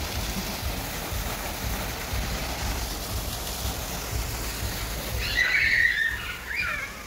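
Steady splashing hiss of a small plaza fountain's water jet, with a brief warbling high sound about five seconds in.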